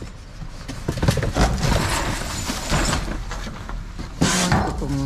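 Plastic trash bags and cardboard boxes rustling, crinkling and scraping as they are pushed and lifted around in a dumpster, with irregular knocks. A louder crackling burst comes about four seconds in.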